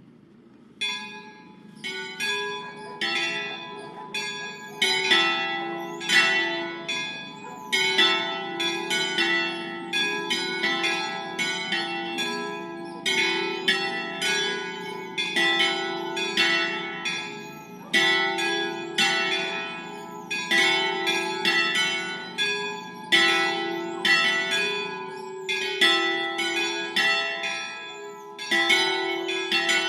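Three swinging church bells tuned E, F-sharp and G-sharp, cast in 1946 by Angelo Bianchi of Varese, rung by hand with ropes in a full peal (distesa), their clappers striking in overlapping succession. The ringing starts about a second in and grows louder over the first few seconds, then continues as a dense, continuous clangour of strokes.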